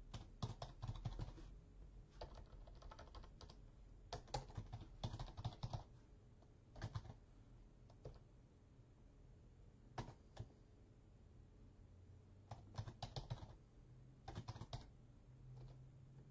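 Typing on a computer keyboard in short bursts of keystrokes with pauses between.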